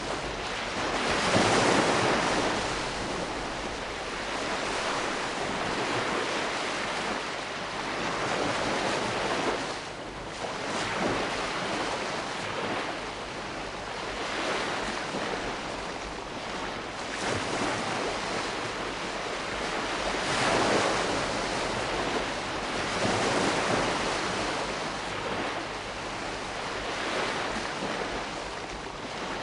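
Calm sea: small waves washing onto the shore and drawing back, swelling and easing every few seconds.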